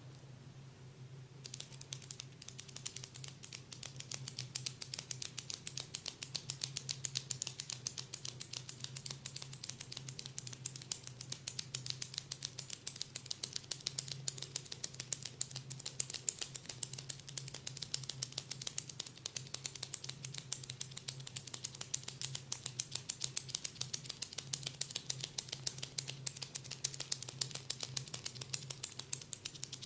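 Rapid, crisp tapping on a person's head during a massage, several taps a second, starting about a second and a half in, over a steady low hum.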